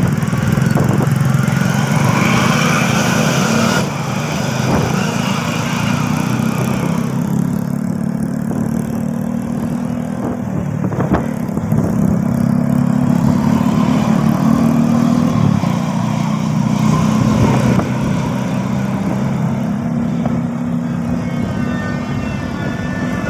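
Motor vehicle engine running steadily at close range, with small changes in pitch and level, in road traffic.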